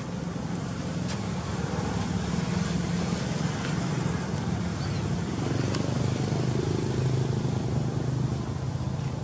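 A motor vehicle's engine running: a steady low drone that grows a little louder in the second half.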